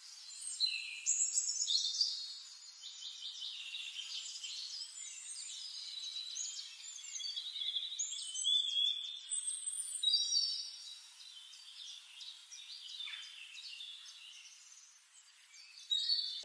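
Songbirds chirping and singing: a busy mix of high chirps, short whistled glides and trills, louder about a second in and again around the middle, then fading.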